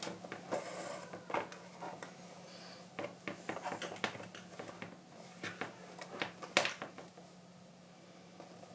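Leather being hand-stitched with needles and waxed thread: irregular soft clicks and rustles as the needles go through the punched holes and the thread is drawn tight. A steady low hum runs underneath.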